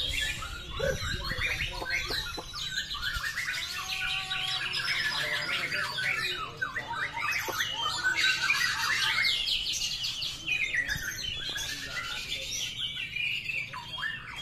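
Several caged white-rumped shamas (murai batu) singing at once, a dense, unbroken run of fast, varied whistled phrases.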